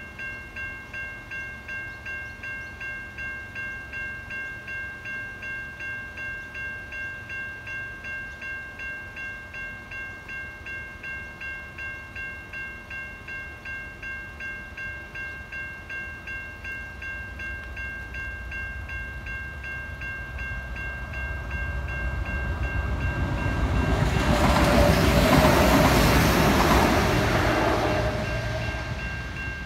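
Electronic level-crossing bells (Safetran Type 3) ringing in a steady pulse, a little over two strokes a second. From about two-thirds of the way in a diesel railcar approaches and passes through the crossing, growing loud near the end before starting to fade, while the bells keep ringing.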